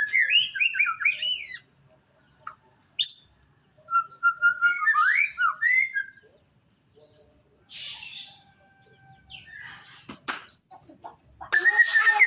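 White-rumped shama singing: bursts of quick, sliding whistled phrases separated by short pauses. A few sharp clicks come about ten seconds in.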